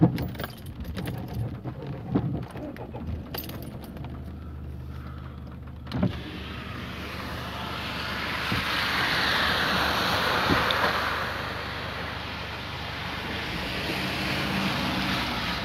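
Car driving through rain: a low engine hum inside the cabin with scattered light taps, then a thump about six seconds in and a louder steady hiss of tyres on the wet, flooded road, swelling for a few seconds.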